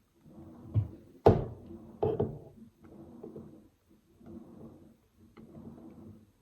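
A few sharp knocks and clicks of small tools and reel parts being handled on a hard work surface, the loudest about a second in. Faint low sounds repeat evenly underneath.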